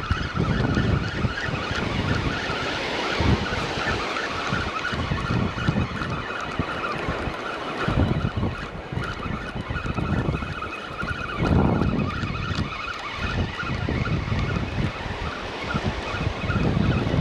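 Wind gusting on the microphone over small surf breaking on a sandy beach, with a faint steady whine underneath.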